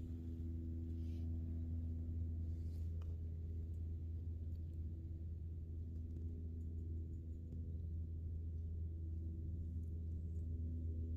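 A steady low hum with fainter held tones above it that swell and fade.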